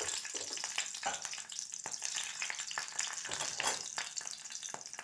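Whole green chillies frying in hot mustard oil in a kadhai: a steady sizzle full of sharp crackling pops, easing slightly toward the end.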